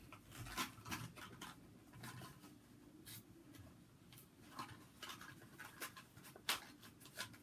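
A Hot Wheels card-and-plastic blister package being handled and pulled open by hand: irregular scratching, crinkling and small clicks, with one sharper snap about six and a half seconds in.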